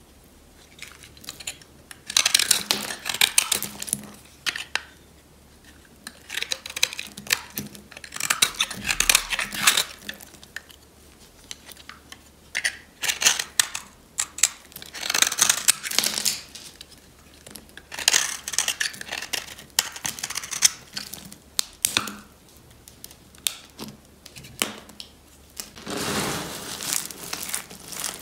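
Utility-knife blade shaving slivers off a bar of dry, brittle soap, in repeated strokes that each give a crisp, crunchy scrape, with short pauses between. Near the end, hands crunch and crinkle through a heap of loose soap shavings.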